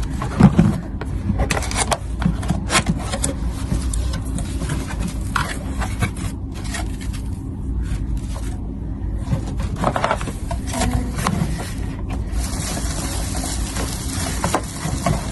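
A cardboard box and its packaging being handled and opened: irregular scraping and rubbing over a steady low hum.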